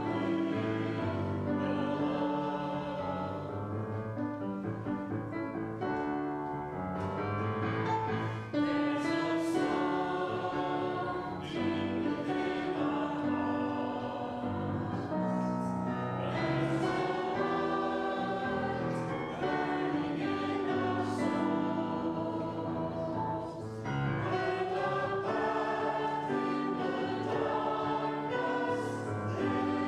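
A group of voices singing a hymn in phrases a few seconds long, with brief breaks between phrases.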